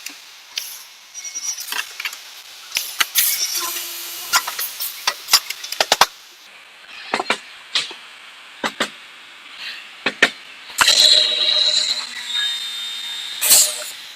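Wooden cabinet doors knocked and clattered as they are handled and positioned, then about eleven seconds in a hinge-boring drill runs for about two seconds to bore the hinge holes, ending with a loud knock.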